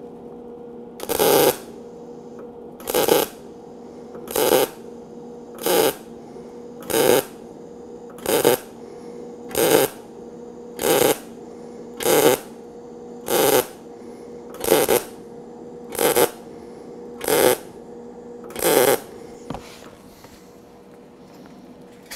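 MIG welder striking about fourteen short tack welds, one every second or so, each a brief crackling arc, stitching a butt seam in thin sheet steel whose edges were left square, not bevelled. A steady hum runs underneath between the tacks.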